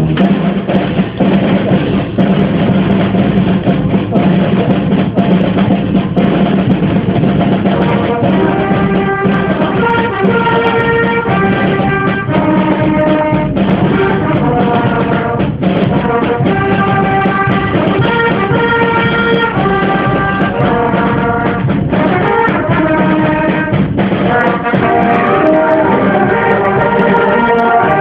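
A band playing: a brass melody of trumpets and trombones in held, stepping notes over a drum kit.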